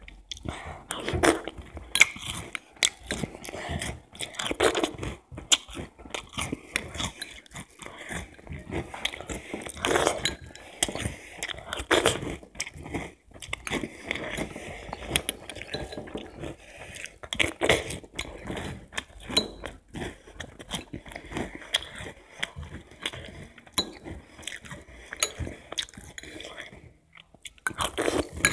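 A person chewing crunchy breakfast cereal close to the microphone: a run of irregular crunches and mouth noises, with a few louder bites.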